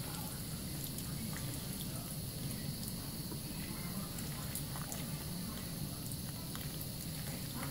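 Tap water running steadily into a sink while soapy hands squeeze and rub two wet bar soaps into lather, with small scattered wet clicks from the lather.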